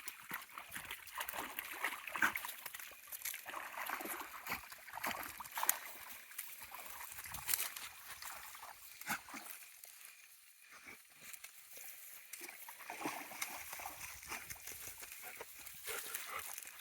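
Dogs wading through a shallow river, water splashing and sloshing in irregular bursts, with a quieter lull about ten seconds in.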